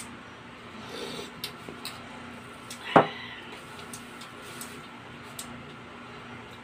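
Tableware being handled: a few light clicks, then one sharp knock with a short ring about three seconds in, as a soup bowl with a metal spoon in it is set down on a table.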